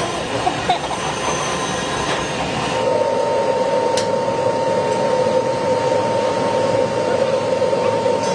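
A motor running with a steady whir and a constant whine that sets in about three seconds in, over general workshop noise.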